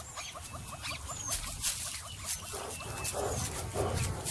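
African wild dog panting: short breathy huffs, about two to three a second, starting about halfway in. Faint rapid ticking and a few short high bird chirps sit underneath.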